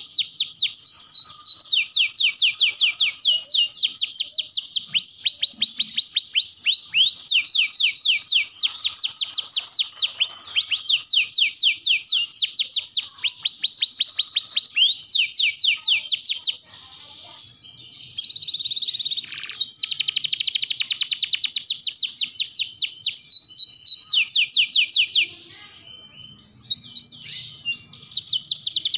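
Domestic canary singing long, rapid trills of fast repeated sweeping notes, high-pitched and loud, with two short breaks in the second half.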